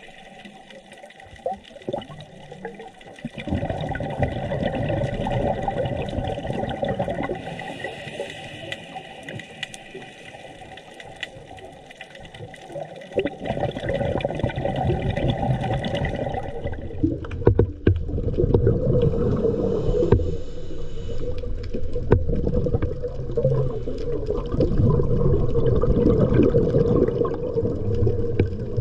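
Water rushing and gurgling around the microphone underwater, growing louder and lower about two-thirds of the way through.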